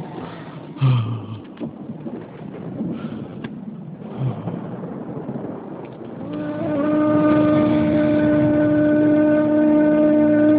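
Outdoor wind rumble with a few low bumps, then about six seconds in a wind instrument in the film score comes in on one long held note, louder than all before it.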